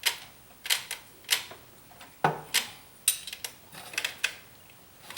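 Socket ratchet clicking in short bursts of sharp clicks as it snugs up a plastic oil filter housing cap, gently because of its plastic threads.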